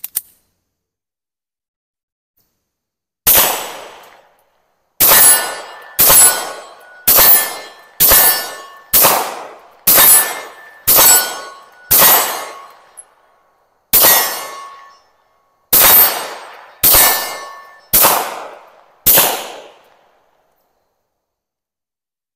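A sharp click at the very start, then fourteen shots from a Tisas PX-9 Gen 3 9mm pistol, fired at a steady pace of about one a second with two slightly longer pauses, each shot trailing off over about a second.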